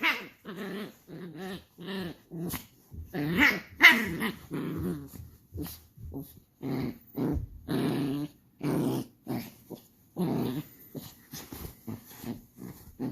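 Shiba Inu puppy growling angrily in a run of short, repeated growls, with a louder, higher-pitched outburst about three to four seconds in.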